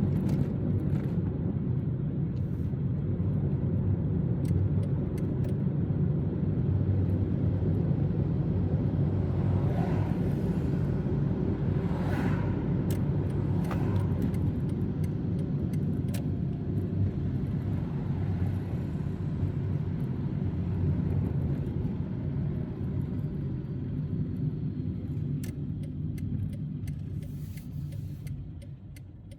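A car driving on a city street, heard as a steady low rumble of engine and road noise that dies down over the last few seconds.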